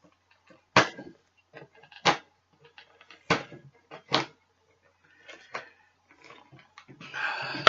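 Cardboard box and packaging handled by hand while being opened: four sharp clicks or knocks stand out among small ticks and rustles, and the rustling thickens near the end.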